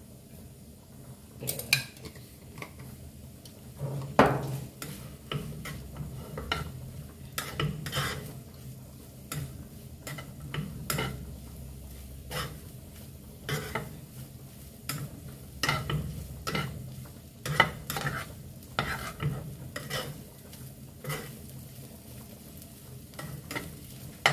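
Spatula scraping and knocking against a nonstick frying pan as fried rice is stir-fried and tossed, in irregular strokes one or two a second, over a light sizzle.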